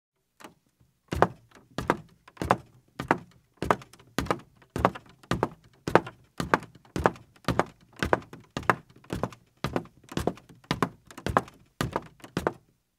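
A steady series of thuds, a little under two a second, starting about a second in and keeping an even pace.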